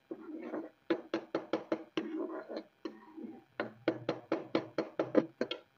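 Metal spoon knocking and scraping against a steel pan while onions and spices are stir-fried, in two runs of quick strokes about five a second with a short pause between.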